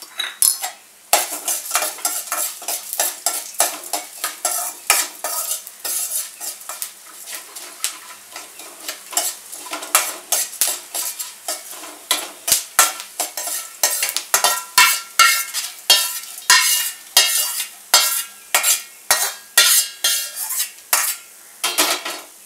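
Steel spatula scraping and clinking against a stainless steel kadhai as whole coriander seeds are stirred and roasted, the seeds rattling across the pan. The strokes come quickly, a few a second, and grow busier in the second half.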